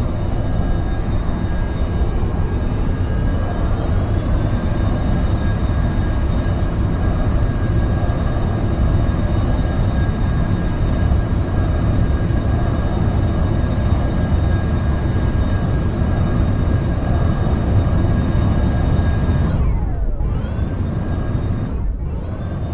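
Jet aircraft engines running loud and steady, with a whine that rises in pitch a few seconds in and then holds. Near the end the tone briefly sweeps and swirls twice.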